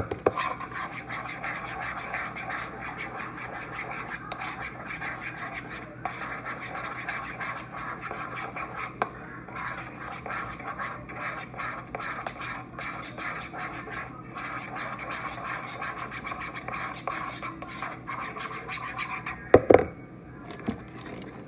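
A spoon stirring and scraping a thick sauce around a bowl in continuous rapid strokes, with a brief pause now and then. Near the end come two sharp knocks, like the spoon being tapped against the bowl.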